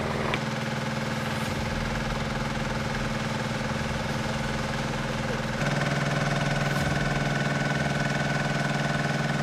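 Small engine of a trailer-mounted portable water pump running at a steady speed while pumping floodwater out of an underpass. About five and a half seconds in it comes through a little louder and deeper.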